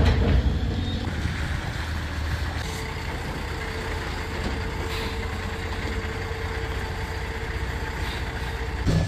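Heavy goods truck's engine running at low speed while the truck manoeuvres slowly, a steady low rumble with a faint steady whine added from about three seconds in.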